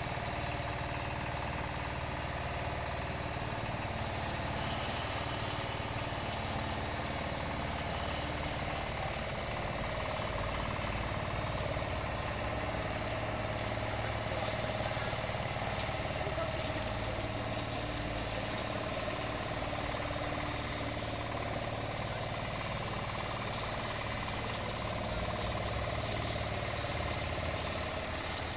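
Snow plow truck's engine running steadily at idle, a continuous even hum.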